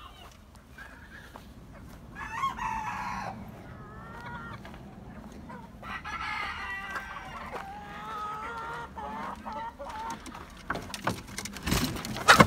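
Roosters crowing, one crow long and drawn out for about three seconds in the middle, among shorter calls and clucking from the flock. Near the end come a few sharp knocks and a loud bang from the wooden, wire-mesh coop being handled.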